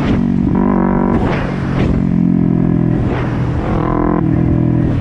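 Motorcycle engine running under the rider, its pitch shifting up and down as the throttle changes, with a change in tone about four seconds in.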